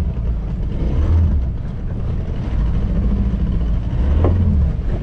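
Low, uneven rumble of wind buffeting the microphone on a small open boat at sea, swelling and easing in gusts.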